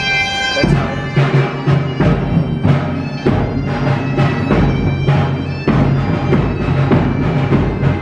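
Music with a drum beating steadily under sustained low tones, coming in abruptly about half a second in.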